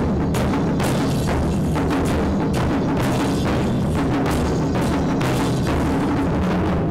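Japanese taiko drum ensemble, large and mid-sized taiko struck with sticks, playing a loud, fast, dense rhythm of strikes.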